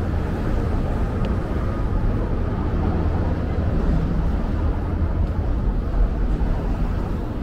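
City street ambience: a steady low rumble of traffic, with a faint steady tone and one short tick about a second in.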